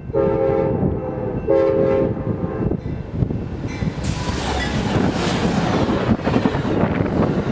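Amtrak GE Genesis diesel locomotive sounding its horn in two blasts of about a second each. The train then passes close at speed: a loud rush and rumble of the locomotive and double-deck Superliner cars' wheels on the rails.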